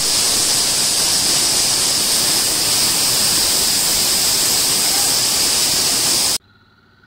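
Waterfall: heavy water pouring and splashing down onto a person standing beneath it, a steady rushing noise that cuts off suddenly about six seconds in.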